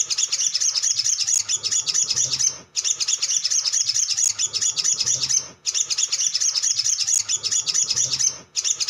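Male olive-backed sunbird singing in full song: a dense, high, rapid twittering chatter. It comes in even bursts of about three seconds, each separated by a brief break.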